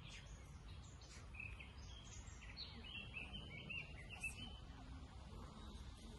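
Faint outdoor ambience: a steady low rumble, with a run of short, high bird chirps through the middle.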